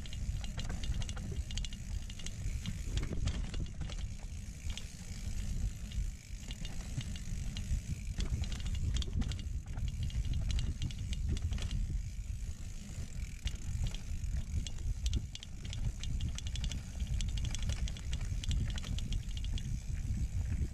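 Mountain bike rolling over a dirt trail, the rear freehub ratcheting as it coasts, with many small clicks and rattles from the chain and frame over bumps. A steady low rumble from wind and ground vibration on the bike-mounted camera runs under it.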